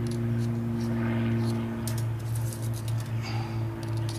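Scattered light metallic clicks and ticks of thin steel flywheel shims and a dial indicator being handled while setting crankshaft end play, over a steady low hum that is the loudest sound.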